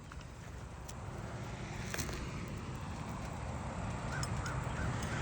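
Steady low rumble of a motor vehicle, slowly growing louder, with a faint click about two seconds in.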